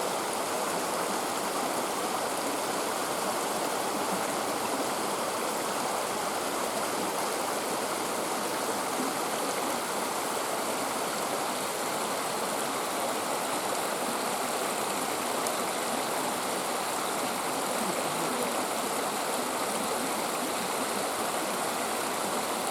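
Steady rush of a stream tumbling over rocks and small falls, an even wash of water noise.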